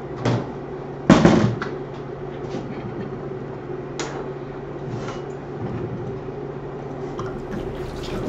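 A few knocks and clunks as homebrewing gear is picked up and set down, the loudest about a second in and lighter ones around four and five seconds in, over a steady low hum.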